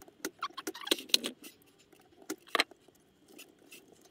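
Rattling and quick clicks of wiring and small plastic connectors being handled and worked loose inside an opened Betamax VCR. A flurry of clicks comes in the first second and a half, then two sharper clicks a little past the middle.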